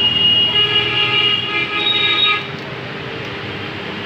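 A vehicle horn sounds for about two and a half seconds as one steady pitched tone, then stops, leaving a lower background of street noise.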